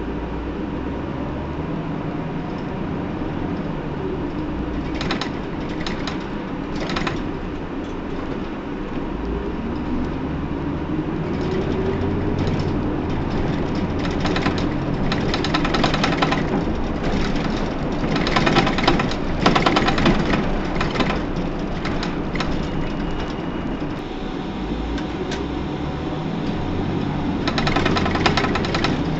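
Running sound of a Hino PDG-KV234N2 city bus: the diesel engine pulls away with its pitch rising, about a third of the way in and again near the end, under a steady drone. Much of the time a rapid rattling runs over it.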